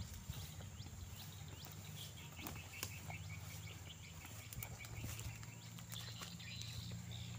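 Outdoor wildlife ambience: high, quick falling chirps repeated several times a second, over a steady high whine, with a few light footsteps through grass.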